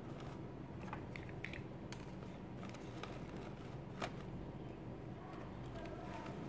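A small stapler clicking twice, about two seconds apart, as it fastens pleats of folded fabric, over faint handling rustle and a low steady hum.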